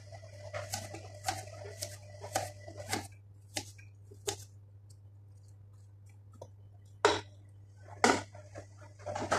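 Kitchen knife slicing a carrot into rounds on a plastic cutting board: a sharp knock with each cut, about two a second, for the first few seconds. After a pause come two louder knocks near the end.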